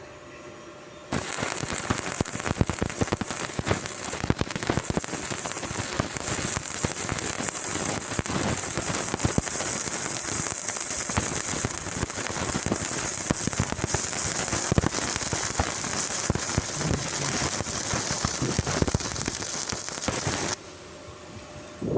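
Stick (shielded metal arc) welding arc crackling and sizzling steadily as a weld bead is run. It strikes up about a second in and cuts off abruptly near the end when the arc is broken.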